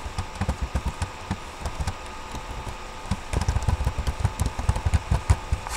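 Rapid typing on a computer keyboard, keystrokes clattering and thumping in quick irregular runs, easing off briefly about two seconds in before picking up again.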